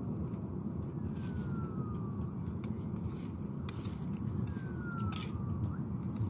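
Steady low rumble with a faint, high falling whistle that repeats about every three seconds, and scattered light clicks.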